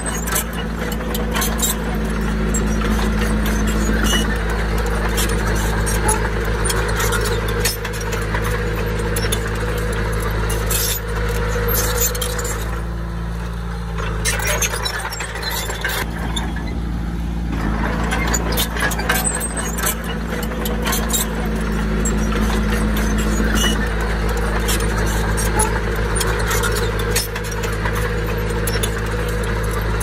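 Komatsu D20P bulldozer's diesel engine running steadily, with frequent short metallic clicks and clanks over it. The sound thins for a few seconds about halfway through, then picks up again.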